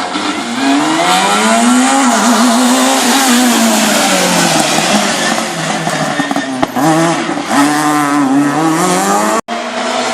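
Super 2000 rally car at full attack, its naturally aspirated two-litre four-cylinder engine revving hard, the note climbing and dropping several times through gear changes and lifts, over tyre and road noise. The sound cuts out for an instant near the end.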